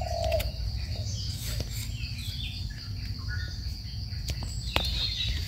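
Forest ambience: scattered bird chirps over a steady high insect drone, with a few light clicks.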